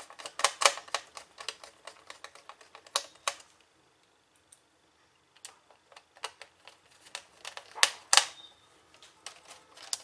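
Rapid small clicks and taps of a screwdriver and tiny screws on metal and plastic while the hard-drive screws of a laptop are fastened. The clicks come in a quick run, stop for about two seconds, then resume more sparsely, with the loudest taps near the end.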